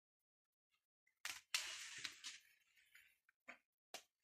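Faint handling noises on a workbench: a rustling scrape lasting about a second and a half, starting just over a second in and fading, then two small clicks near the end.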